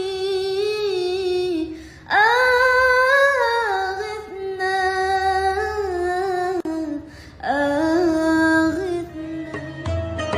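A high solo voice sings long, slowly ornamented held notes, pausing about two seconds in and again after about seven seconds. Near the end, instrumental music with struck notes and a deep bass comes in.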